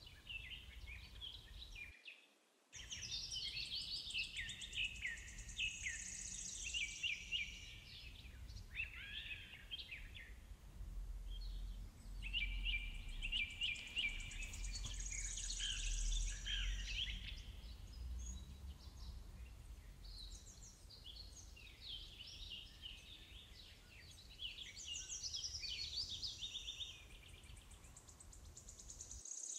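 Birds chirping and singing, many short overlapping calls and whistles, over a low steady rumble. The sound drops out briefly about two seconds in.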